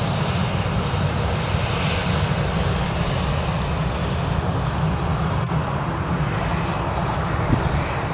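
Boeing 737-700's CFM56 jet engines running as the airliner rolls along the runway, a steady rushing jet noise with a deep rumble underneath.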